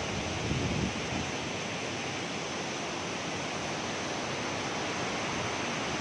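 Rain-swollen, muddy stream rushing over rocks below a waterfall: a steady rushing of water.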